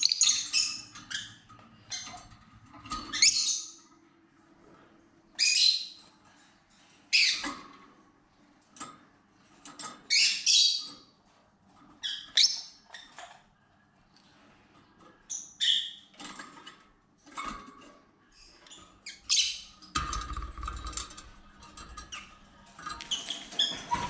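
Rosy-faced lovebirds calling: a string of loud, short, high-pitched chirps and squawks every second or two. A low rumble joins near the end.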